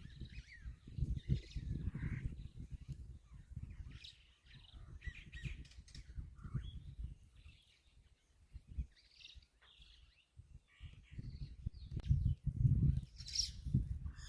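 Wild birds giving scattered short chirps and calls over an uneven low rumbling noise that swells and fades, louder again near the end.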